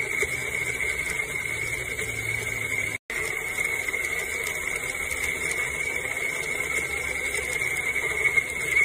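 Pine Cone portable electric blender running steadily, its small motor giving a constant high-pitched whine while the blade churns fruit and liquid in the jar. The sound drops out for an instant about three seconds in.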